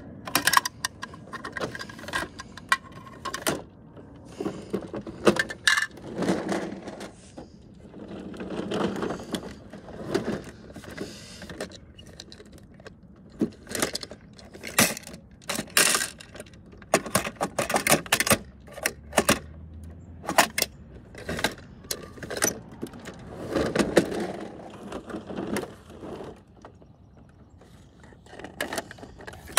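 Plastic clicks and clacks from a toy side-loading garbage truck's red loader arm being worked by hand, along with small plastic wheelie bins being handled. Three or four longer rattles of about a second each break up the clicking.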